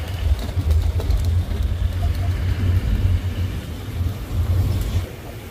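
Safari canter's engine running as it drives along, heard on board as a steady low rumble.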